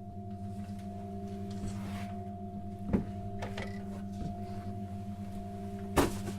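A steady electronic drone of several held tones, low and mid-pitched, with a sharp knock about three seconds in and another about six seconds in.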